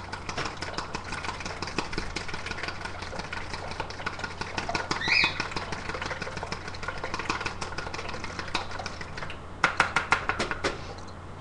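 A fork beating raw eggs in a bowl: a fast run of small clicks as the tines strike the bowl, growing into louder, even bursts of about ten strokes a second near the end. A brief squeak comes about halfway through.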